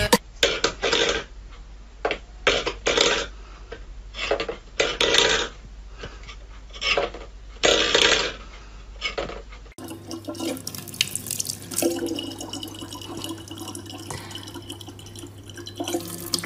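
Stainless-steel pet bowls clattering on a wooden floor in a string of short, sharp bursts. About ten seconds in this gives way to a steady stream of tap water running into a plastic water bottle.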